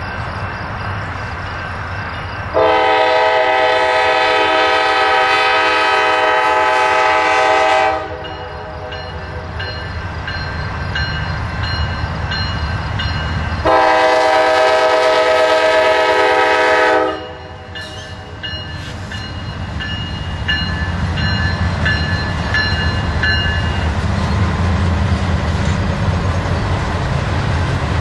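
Diesel locomotive's multi-chime air horn sounding two long blasts for a grade crossing, the second a little shorter. After them, the low rumble of the approaching train builds steadily.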